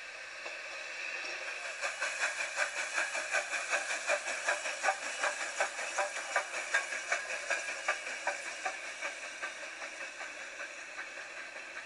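Steam locomotive chuffing: regular exhaust beats, about four a second, over a steady hiss of steam. It swells in as if approaching and fades away near the end.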